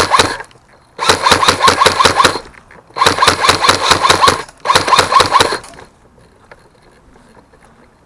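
Airsoft gun firing full-auto in bursts of rapid, evenly spaced shots, the end of one burst and then three more, the last stopping about six seconds in.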